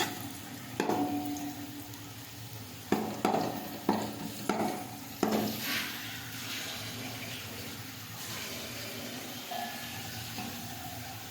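A metal spoon knocks against a cooking pot about six times in the first five seconds, each knock ringing briefly. Then comes a steady sizzle of browned onions frying in oil.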